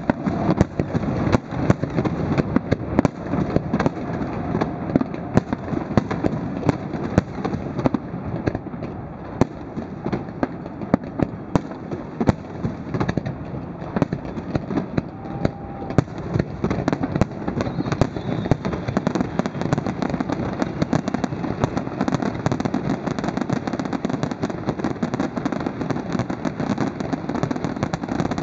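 Fireworks display: many bangs and crackling bursts in quick, irregular succession.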